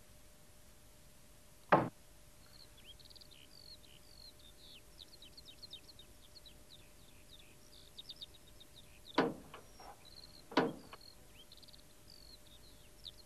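A wooden door shuts with a single sharp knock about two seconds in. Faint bird chirping follows, and late on two more knocks come as a van's rear doors are opened.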